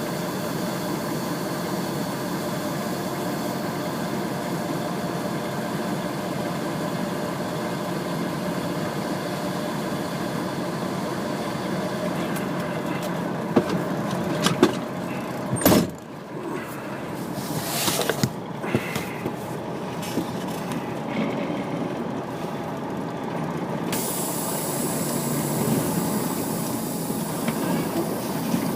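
A heavy vehicle engine running steadily, with a few sharp knocks about halfway through, then a sudden drop in level and a short hiss like an air-brake release.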